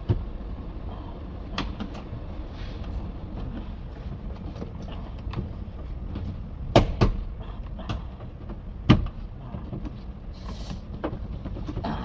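Scattered sharp clicks and knocks from the Audi A5 door's window trim strip being worked loose along the top edge of the door, over a steady low hum. The two loudest knocks come a little past the middle, about two seconds apart.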